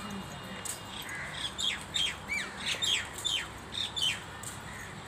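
Birds squawking: a rapid run of short, sharp calls, each falling in pitch, from about a second in until just past four seconds.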